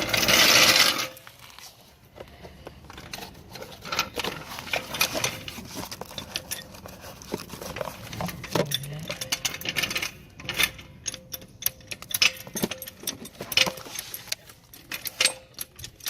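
Metal hand tools and brake parts clinking, clicking and rattling in irregular short strikes as a rear brake caliper is worked off. It opens with a loud hiss lasting about a second.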